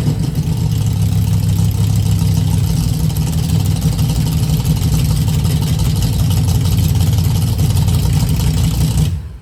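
1968 Plymouth Barracuda drag car's engine running through home-made header collector extensions, dropping from a rev to a steady idle as the sound begins. The engine sound cuts off abruptly near the end.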